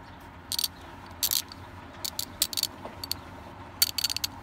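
Brand-new Craftsman 120-tooth ratchet worked back and forth by hand, giving several short bursts of fine, rapid clicking. New out of the box, it doesn't sound that great at first, which the owner guesses is because the grease inside isn't yet spread evenly.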